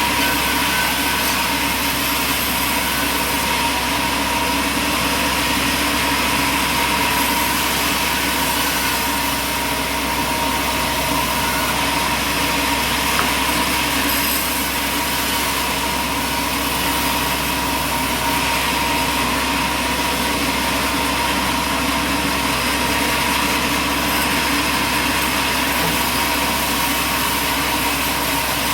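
Sawmill machinery running steadily: a constant engine drone with a steady high tone through it.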